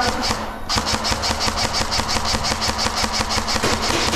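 Rapid, even mechanical clicking from airsoft gear, about ten clicks a second, with a short break near the start.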